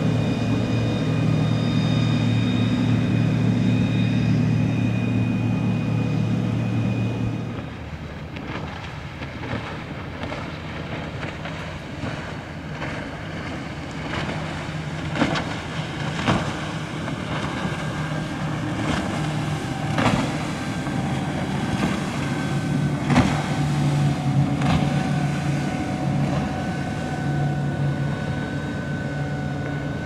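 Boat engines running as boats pass through an inlet. A loud, steady low hum drops off suddenly about a quarter of the way in, leaving a quieter engine hum with a few sharp knocks.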